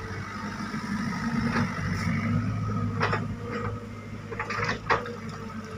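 Sany SY55C mini excavator's diesel engine running steadily at a low, even hum. Several short sharp clicks come between about three and five seconds in, the loudest near the end.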